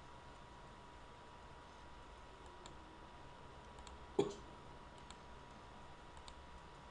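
Quiet room tone with a faint steady whine and a few soft computer mouse clicks. One louder short knock comes about four seconds in.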